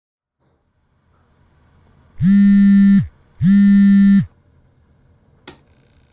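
Ship's horn sounding two loud blasts, each just under a second long with a low, steady pitch that sags as it starts and stops, over a faint hum. A sharp click follows near the end.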